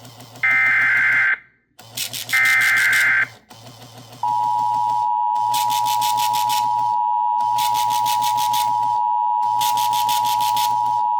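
Emergency Alert System SAME header: the last two of three harsh screeching digital data bursts, each about a second long. About four seconds in they give way to the steady, piercing two-tone EAS attention signal, which holds through the rest and marks the start of a new severe thunderstorm warning.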